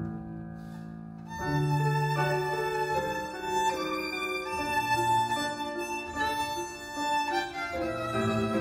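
Violin and grand piano playing a classical sonata together. The piano plays softly at first, then the violin comes in louder about a second and a half in with long bowed held notes over the piano.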